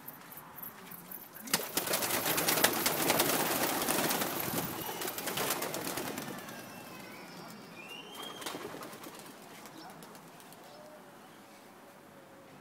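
A flock of pigeons taking off together, a loud clatter of flapping wings that starts suddenly about a second and a half in and fades away over the next few seconds as the birds fly off.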